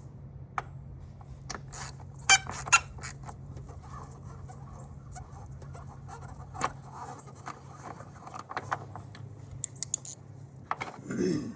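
A battery hold-down bolt being loosened with a socket and ratchet: scattered metal clicks and squeaks, two sharp clacks a little over two seconds in, over a steady low hum.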